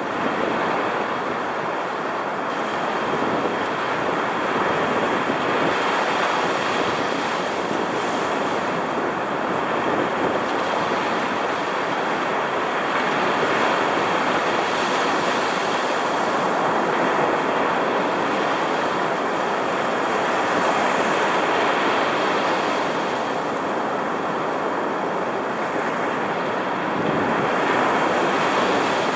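Rough storm surf driven by a strong cold front: roaring waves breaking and washing up the sand right at the water's edge, a continuous rush that swells and eases as each wave comes in, with wind.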